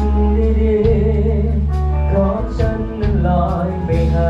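Music with a singing voice over a steady bass line.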